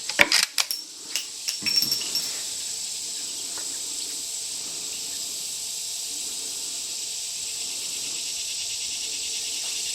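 A quick run of sharp clicks and knocks over the first two seconds or so, then a steady high-pitched drone of insects.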